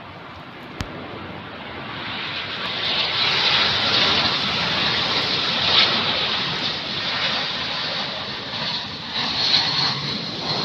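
Jet airliner's engines roaring overhead, building over the first few seconds and then holding loud. A single sharp click comes just under a second in.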